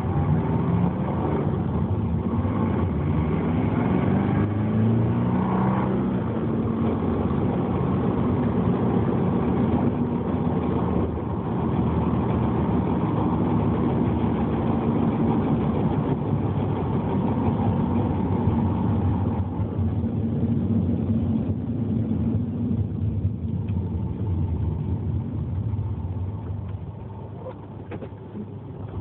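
Subaru Legacy engine and drivetrain running while the car is driven, the engine pitch rising and falling in the first few seconds, then holding steadier before the sound drops off near the end. This is the car whose grinding noise comes only under deceleration in gear and follows engine revs, not road speed.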